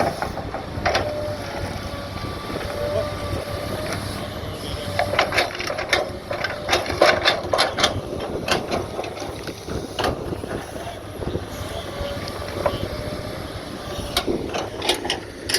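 Heavy earthmoving machine working on rock protection: a steady engine drone with a faint whine, broken by clusters of sharp clanks and knocks as rock is handled, thickest about five to nine seconds in and again near the end.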